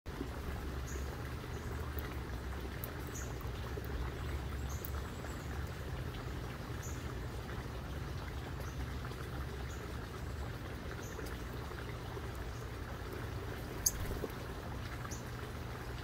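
Steady rain ambience over a low, even rumble, with short faint high bird chirps every second or so and one sharp click about fourteen seconds in.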